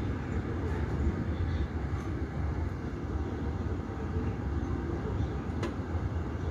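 Steady low rumble of airport apron noise, with a single sharp click about five and a half seconds in.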